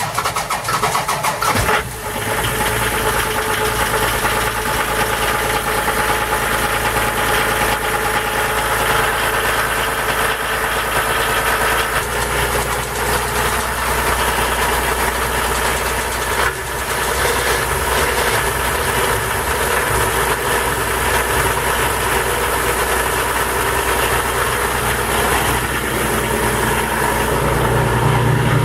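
Motor cruiser's inboard engine running steadily at idle, loud and close, with a low hum that grows stronger near the end.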